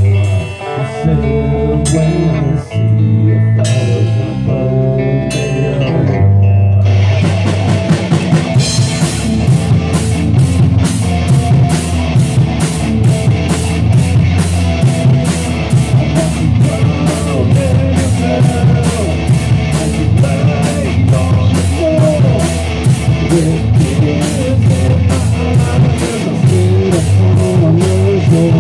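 Rock music. A guitar plays alone with a bass line for about seven seconds, then the drum kit and the full band come in with a steady driving beat.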